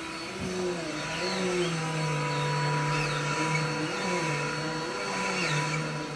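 Vacuum cleaner running steadily, its motor pitch wavering and shifting up and down several times.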